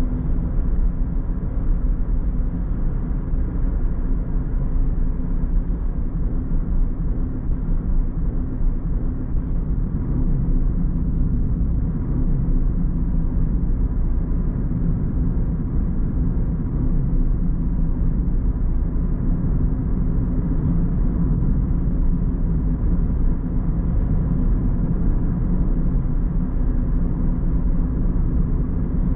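Car driving along a road: a steady low rumble of road and engine noise that holds even throughout, with no gear changes or sudden sounds.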